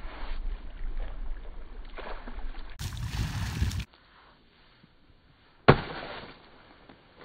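Wind on the microphone and water lapping at the shore, cutting off suddenly; then one sharp slap as a bare foot kicks a long kelp frond held up in the air.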